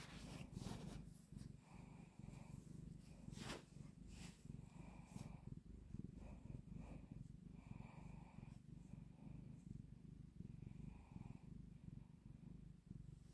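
Tabby cat purring steadily while being stroked on the head, the purr swelling softly every second or two with its breathing. A few faint clicks, the sharpest about three and a half seconds in.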